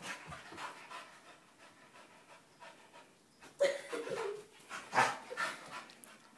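A large black dog panting quickly and hard while it jumps for a stuffed toy, with a couple of louder noises about three and a half and five seconds in.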